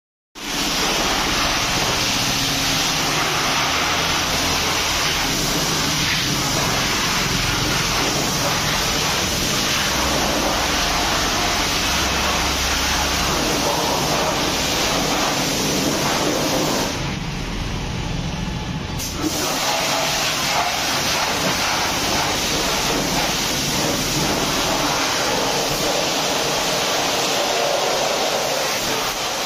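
Pressure washer spraying a steady jet of water, a loud even hiss over a low motor hum, which thins out for about two seconds past the middle and then resumes.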